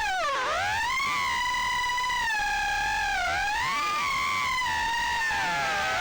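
Happymodel Mobula7 tiny whoop's small brushless motors whining in flight, the pitch sweeping down and up with the throttle, with a sharp dip about half a second in.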